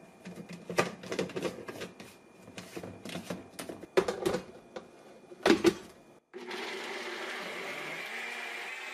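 Plastic blender cup and blade being handled and pressed onto a NutriBullet RX power base: a run of clicks and knocks, two louder ones about four and five and a half seconds in. About six seconds in, the NutriBullet RX motor starts blending a smoothie with a steady whir that speeds up near the end, the slow-then-fast start of its automatic cycle.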